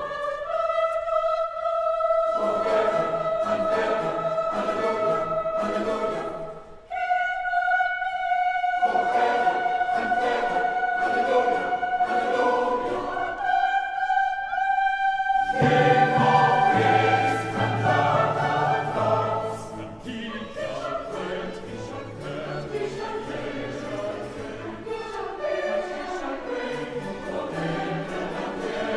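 Choir and orchestra performing classical choral music. Long held sung notes enter in turn after brief breaks, each higher than the last, and the full choir and orchestra play together from about halfway.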